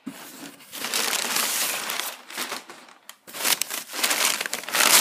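Packing paper crumpling and rustling as it is pulled out of a cardboard box, in two spells with a short pause about three seconds in.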